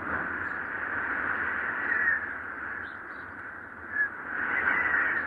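Wind whistling: a steady airy hiss with high whistling tones that swell and glide, briefly at about two seconds and again from about four seconds in.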